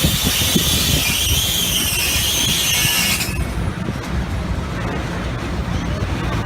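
Freight train cars rolling slowly with a low, steady rumble, overlaid for the first three seconds by a high-pitched, wavering wheel squeal that cuts off suddenly.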